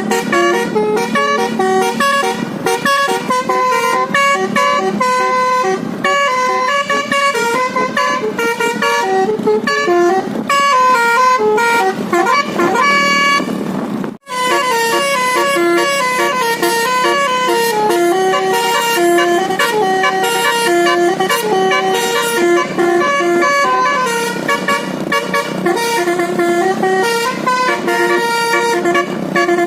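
Basuri 'telolet' multi-tone bus horn playing a fast melody of stepping notes over a steady low drone, cutting out briefly about halfway through and then carrying on.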